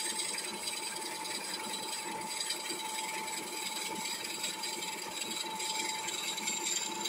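Wood lathe running with a steady motor whine while a drill bit in a tailstock chuck bores into the end of a spinning poplar blank, with an even rasp of cutting.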